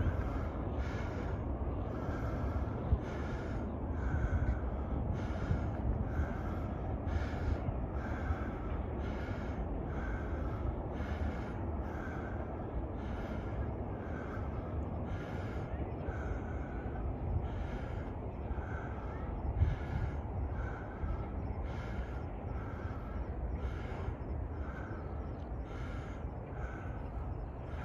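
Heavy, regular breathing close to the microphone, about one breath a second, over a steady low rumble of wind on the microphone.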